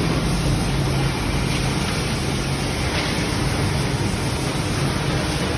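Brush sanding machine running steadily: a constant motor hum under an even rushing noise.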